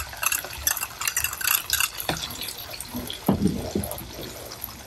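Thick oyster sauce being scraped out of a small glass bowl with a metal ladle and poured into a wok, then the ladle stirring the sticky sauce in the pan. The sound is wet and sloshing, with light clicks and scrapes of metal on glass and on the pan, most of them in the first couple of seconds and a few more later.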